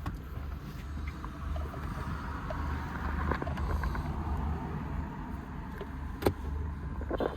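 Steady low mechanical hum, like a vehicle engine running, with scattered small clicks of hand tools and one sharp knock about six seconds in.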